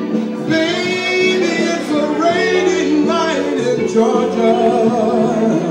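Man singing into a microphone over backing music, holding one long note and then bending the pitch up and down through a few drawn-out notes.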